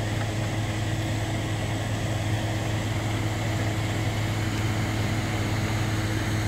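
Large horse transporter running while parked, a steady low engine hum with a constant tone over it.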